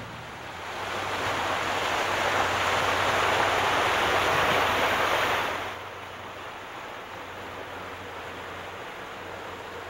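A rushing noise like ocean surf. It swells up over the first couple of seconds, then drops abruptly a little before six seconds in to a softer steady hiss.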